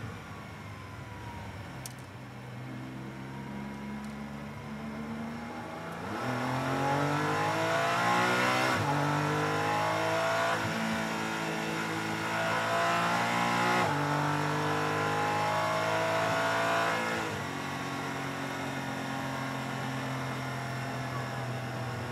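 Porsche 718 Cayman GT4 Clubsport's flat-six racing engine heard from inside the cockpit. It runs at lower revs for the first few seconds, then accelerates hard from about six seconds in, its pitch climbing and dropping sharply at each upshift. It eases off near the end.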